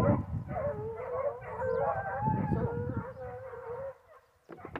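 A pack of foxhounds baying in chorus, several long, wavering howls overlapping one another, breaking off briefly near the end. Hounds giving tongue like this are running the scent of wild boar.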